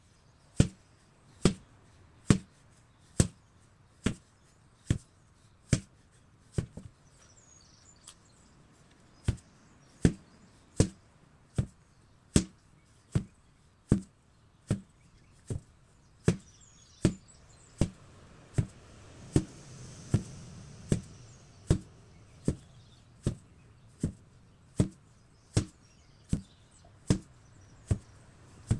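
Sledgehammer, 8 kg, striking with steady, evenly spaced single blows, a little more than one a second. The blows pause for about two and a half seconds around seven seconds in, then carry on at the same pace.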